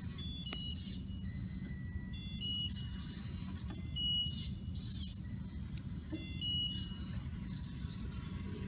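mBot 'Head Shaking Cat' robot running in a maze: short, high-pitched electronic whirs repeat about every two seconds over a steady low motor hum as it drives and turns.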